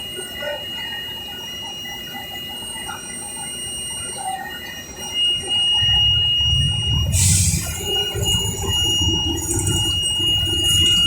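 Orion VII NG transit bus's warning alarm sounding as a steady high-pitched tone, which the rider suspects signals an engine overheat. About five seconds in, the bus's low engine rumble grows louder, and a short hiss comes a couple of seconds later.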